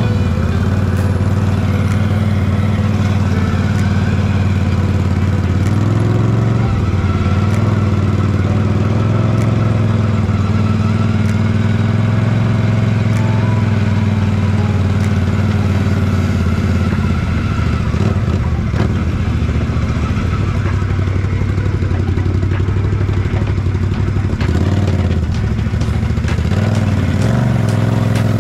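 Can-Am Renegade 1000R ATV's V-twin engine running steadily while riding down a trail, with scattered clicks and rattles; near the end it revs up.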